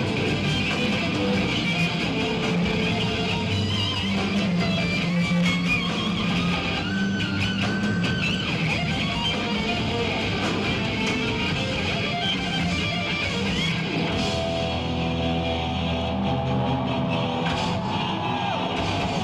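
Heavy metal band playing live: distorted electric guitars, bass and drums, with a lead guitar line that bends its notes over the band. About fourteen seconds in, the band moves to long held chords.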